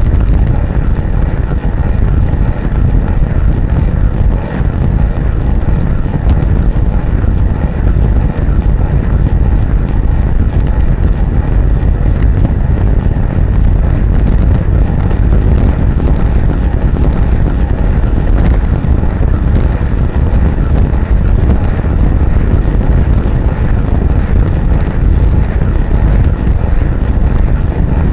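Loud, steady wind buffeting the microphone of a camera mounted on a bicycle riding at speed, a low rumbling rush.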